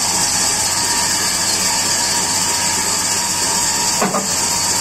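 Sawmill band saw running, a steady drone with a strong high hiss and a low hum. A short knock about four seconds in.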